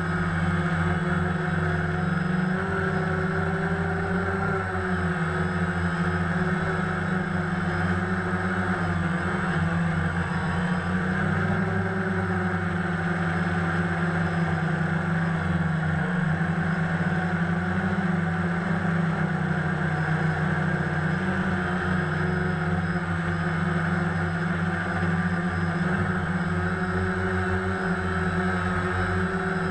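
DJI Phantom quadcopter's electric motors and propellers humming steadily in flight, heard from the GoPro mounted on it in its waterproof housing; the pitch drifts slightly up and down as the throttle changes.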